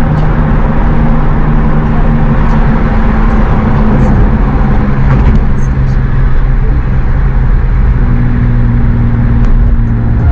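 Car driving, with loud steady road noise and a low engine drone that drops in pitch about halfway through.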